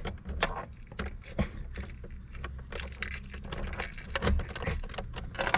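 A bunch of car keys jangling, with many small irregular metallic clinks.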